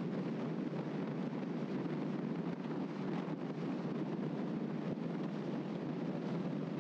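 Steady rushing of a moving vehicle's road noise, with wind on the microphone.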